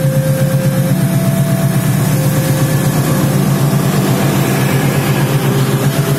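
Diesel locomotive passing close with its engine running under load, its stainless-steel passenger carriages rolling by behind it. Faintly behind it, a level-crossing warning signal sounds two alternating notes.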